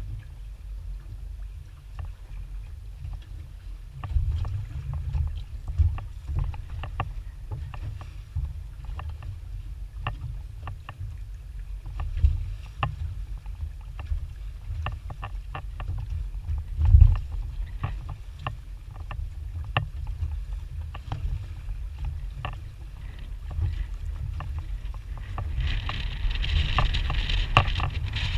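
Water slapping and knocking against the hull of a small aluminium boat, over a steady low rumble of wind on the microphone. Near the end a steady hiss joins in.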